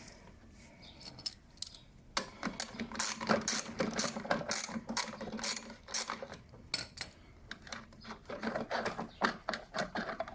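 A ratchet wrench clicking in rapid, uneven runs as the 13 mm bolt holding a lawnmower's self-propelled drive wheel is turned out.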